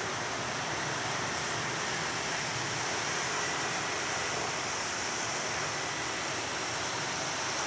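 Steady rushing outdoor noise at an even level, with a faint high hiss over it and no distinct events.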